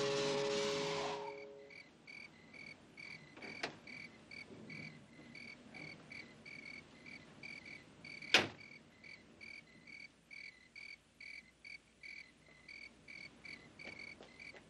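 Crickets chirping steadily, about two or three short high chirps a second, as a held music chord fades out in the first second or so. A single sharp knock stands out about eight seconds in, with a few fainter clicks near the end.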